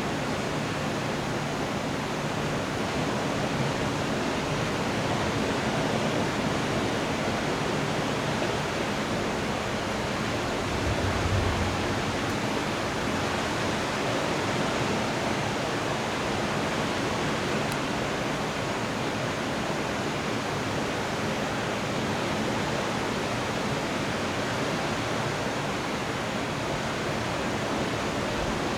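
Steady, even hiss of heavy rain in a thunderstorm, with a brief low rumble about eleven seconds in.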